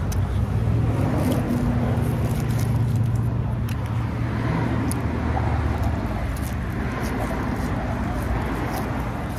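Steady rumble of highway traffic passing, with one vehicle's engine hum standing out in the first few seconds.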